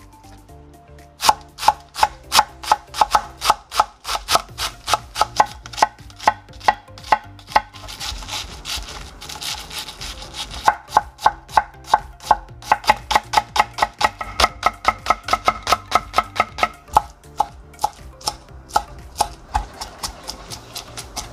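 Kitchen knife chopping food on a cutting board in quick, even strokes, about three a second. Partway through the chopping gives way for a couple of seconds to a rustling, scraping sound, then resumes.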